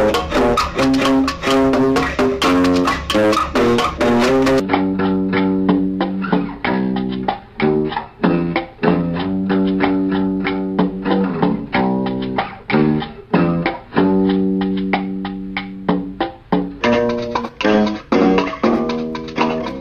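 Instrumental background music: a run of plucked guitar notes over a bass line. The sound turns duller about five seconds in and brightens again near the end.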